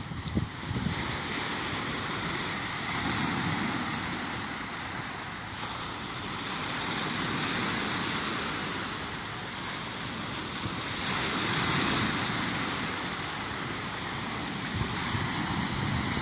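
Sea surf washing on the shore, a steady hiss that swells and eases every few seconds.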